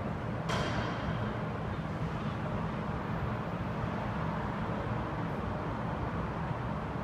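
Steady low machine drone, with a brief clatter about half a second in.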